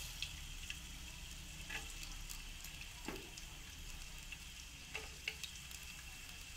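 Chopped ginger frying in hot coconut oil in a frying pan: a faint, steady sizzle with a few small pops here and there.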